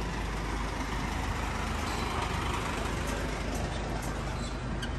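Passenger van idling at the kerb: a steady low engine hum under a constant hiss.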